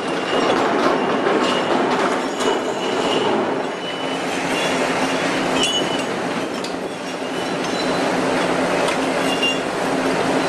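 Fish-processing machinery running: a steady mechanical hum and rattle, with short high metallic squeals and clinks now and then.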